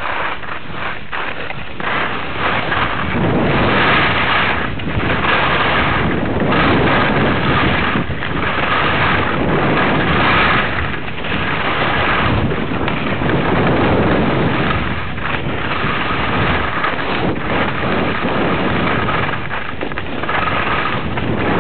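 Wind rushing over the camera's microphone and skis hissing over the snow on a fast ski run, the noise surging and easing every second or two.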